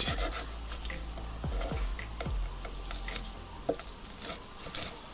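Cleaver blade scraping raw hake flesh off the skin on a wooden cutting board: a series of soft wet scrapes with light taps of the blade on the board.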